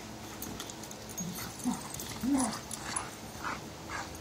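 A yellow Labrador retriever and a golden retriever play-wrestling, with three short, low-pitched dog vocal sounds between about one and two and a half seconds in, the last rising and falling, over faint scattered rustling.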